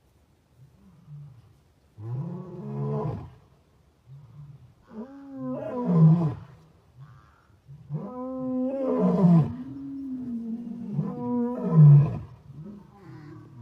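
Tiger roaring four times, with deep growls between the roars.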